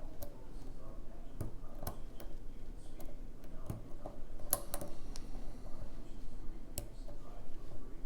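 Lock pick and tension wrench working in a challenge lock's pin-tumbler cylinder, making scattered, irregular metallic clicks.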